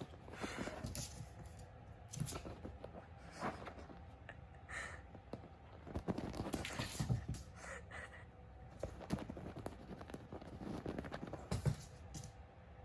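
A kitten's paws pattering and scampering on a hard floor, with scattered light knocks and scrapes, as she hops about in playful threat mode.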